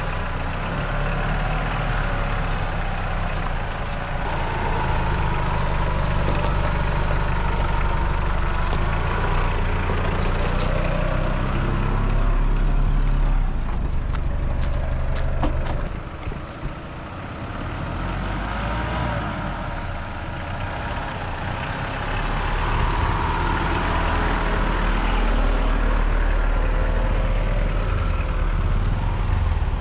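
A vehicle's engine running as it drives along, with a steady low rumble and a cluster of knocks and rattles near the middle, then a brief easing before the engine note picks up again.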